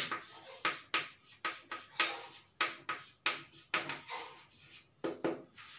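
Chalk writing on a chalkboard: a run of short, irregular taps and scrapes, two or three a second, as letters are written.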